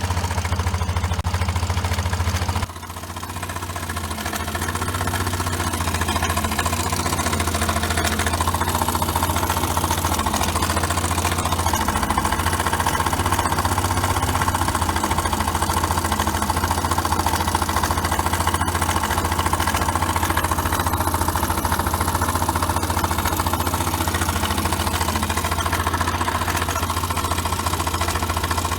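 Suzuki Address V125 scooter's single-cylinder four-stroke engine idling steadily. About three seconds in, the level drops suddenly and builds back over a couple of seconds.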